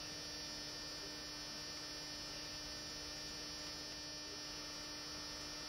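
Faint, steady electrical hum with a thin high whine, and nothing else happening.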